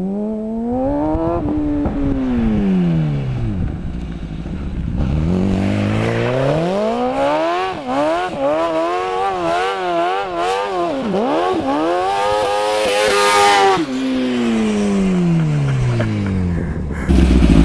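Kart's 1000cc Honda CBR Fireblade inline-four motorcycle engine revving hard while the kart spins its rear tyres in a smoky burnout. The pitch climbs and falls, bobs rapidly up and down at high revs in the middle, then falls away.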